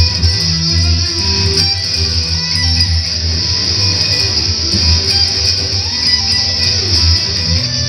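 Live electric guitar played through an amplifier, with a bass line of low notes underneath: an instrumental stretch of a song, without singing.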